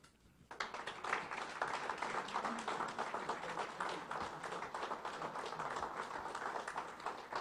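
Audience applauding, starting about half a second in and keeping up a steady, dense clatter of claps.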